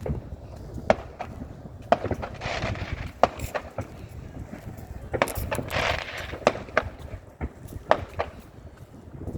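Footsteps clicking on a pavement, roughly one sharp step a second, with two stretches of rushing hiss, the first about two seconds in and the second about five seconds in.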